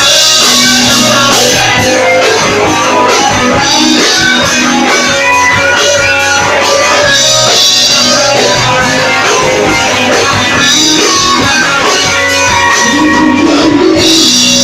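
Live rock band playing loudly: guitars over a drum kit.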